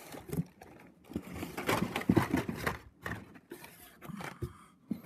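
Hands handling blister-carded Hot Wheels cars in a cardboard case: irregular rustling, scraping and light knocks, busiest about halfway through.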